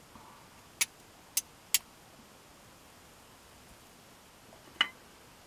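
Dry split kindling sticks cracking sharply as they are handled at a fire pit: three quick cracks about a second in, and one more near the end.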